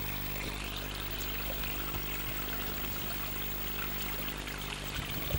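A steady, unchanging mechanical hum, like a motor running.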